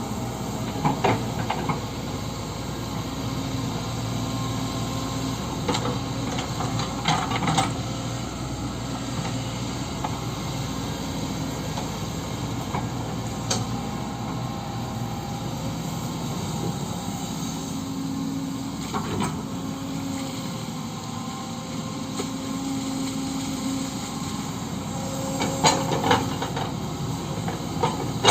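Kobelco SK130 hydraulic excavator running steadily while digging, its engine note shifting a little as the hydraulics take load. Several short, sharp metallic clanks from the bucket and arm are scattered through, grouped about a second in, around seven seconds and near the end.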